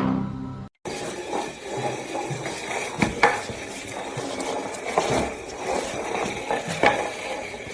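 Steady scraping and rustling noise with several sharp knocks scattered through it, like objects being handled or knocked about.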